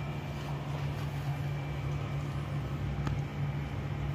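A steady low hum, with a faint click about three seconds in.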